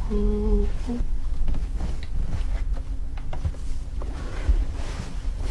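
A woman's voice holds a few short, steady notes in the first second, then breaks off. A low steady rumble with scattered light knocks follows.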